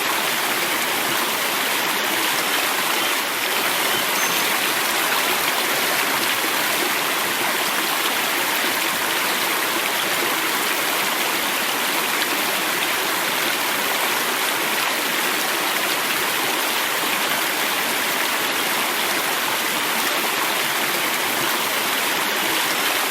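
River water flowing steadily over rocks, a continuous rushing and babbling.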